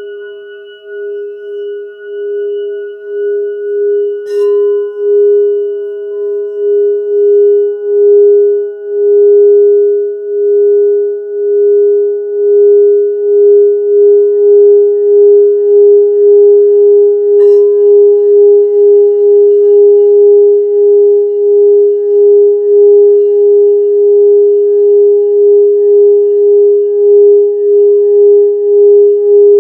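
Crystal singing bowl sung by a mallet circling its rim: one steady pure tone that swells over the first several seconds and then holds, pulsing with an even wobble. Two brief clicks cut across it, about four seconds in and again around seventeen seconds.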